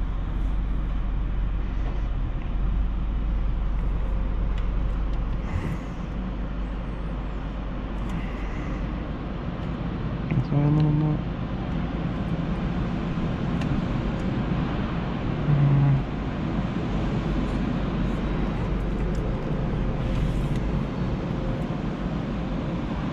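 Steady hum and rush of an automatic car wash tunnel, heard from inside a closed car cabin. Two short, loud low buzzing tones sound about ten and fifteen seconds in, and water spray hits the windshield near the end.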